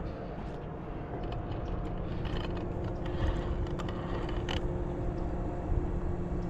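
Steady low background hum, with a faint low drone coming in about two seconds in and a few light clicks.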